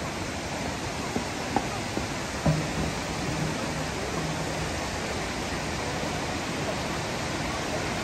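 Steady rushing of a mountain stream and its waterfalls in a rocky gorge. A few knocks of footsteps on the plank walkway come about one to two and a half seconds in.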